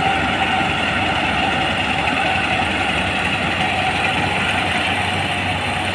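Kubota PRO588-iG mini combine harvester's diesel engine running steadily, with a constant mechanical hum and whine.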